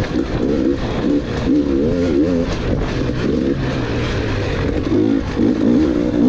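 Dirt bike engine revving up and down again and again as the throttle is opened and closed, over a steady hiss.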